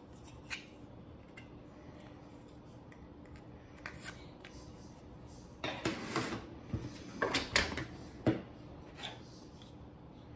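3D-printed plastic parts being handled and fitted together on a tabletop: a few light clicks, then a stretch of clattering and rubbing from about six to eight seconds in, ending in a sharp knock.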